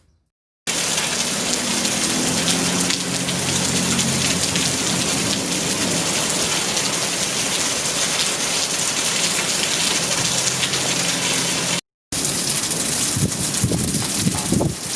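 Heavy rain pouring down in a thunderstorm, a dense steady hiss with a low hum beneath it. It cuts out for a moment about twelve seconds in and then resumes.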